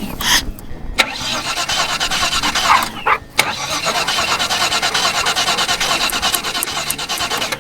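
Holden 304 V8 being cranked over on its starter with starting spray, a steady fast rhythmic churn that does not fire. It stops briefly about three seconds in, then goes on and cuts off near the end. This is a crank-no-start, which the owner puts down to a likely fuel pump problem after eight years of sitting.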